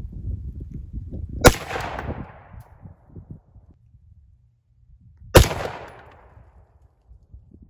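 Two single shots from an AR-15 rifle about four seconds apart, each a sharp crack followed by a fading echo.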